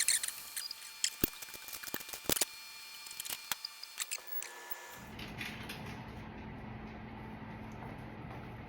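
Kitchen things being handled: scattered light clicks, knocks and rustling. About five seconds in, these give way abruptly to a steady low hum.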